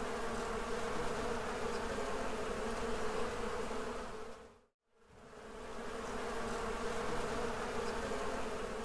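Bees buzzing in a steady hum, fading out to silence about halfway through and fading back in a moment later.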